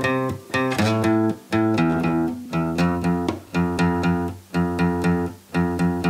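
Background music: a song's instrumental intro of repeated chords on a plucked, guitar-like instrument in a steady rhythm, about two a second.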